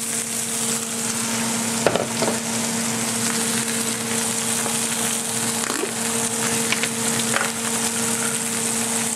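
Pancake batter frying in a hot pan, a steady sizzling hiss with a few light crackles, over a steady low hum.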